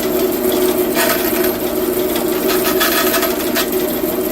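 Small handheld power tool running steadily with a dense buzz, cutting away part of the plastic ring on a cabinet slam latch.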